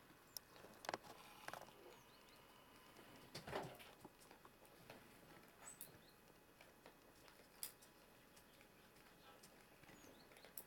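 Near silence, broken by a few faint scattered clicks and a soft knock about three and a half seconds in, and a couple of brief high falling chirps.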